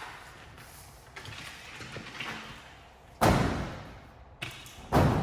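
Two heavy thuds about two seconds apart, each dying away quickly.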